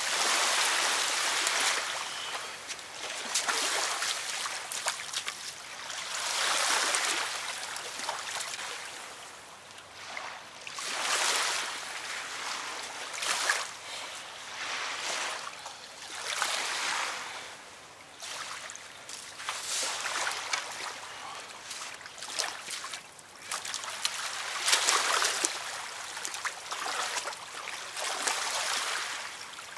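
Small waves washing against a sandy riverbank, swelling and falling back every two to four seconds.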